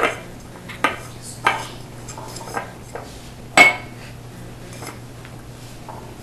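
A metal spoon clinking and knocking against dishes, about half a dozen separate knocks spread over a few seconds. The loudest comes about three and a half seconds in and rings briefly. A faint steady low hum runs underneath.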